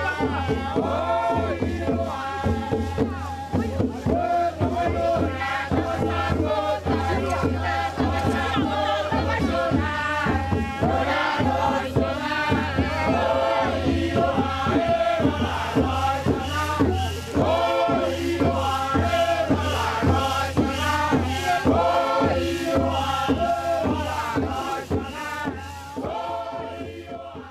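Closing music of group chanting over a steady drumbeat, fading out near the end.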